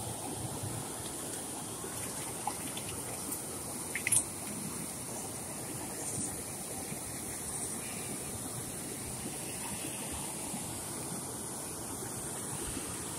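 Steady rush of water flowing over and below an overflowing tank's spillway. A few short knocks cut through it, the loudest about four seconds in.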